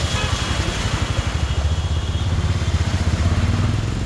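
A car ploughing through deep floodwater, its wheels churning up a splashing wake over a low engine rumble, with the flood water rushing past.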